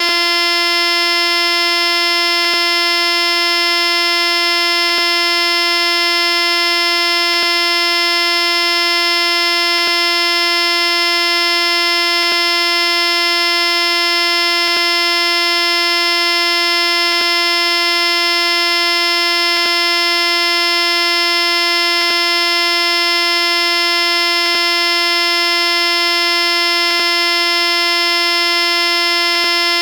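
A steady, buzzy electronic tone held at one pitch with many overtones, unchanging in level, with a faint click about every two and a half seconds.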